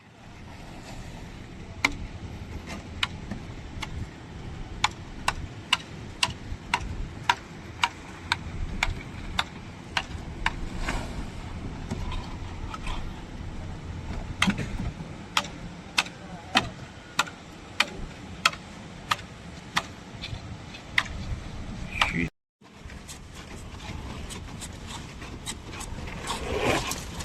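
Repeated sharp hammer blows, about two a second, over a low rumble, typical of hammering on a building site. The sound drops out briefly about 22 seconds in, then the blows resume.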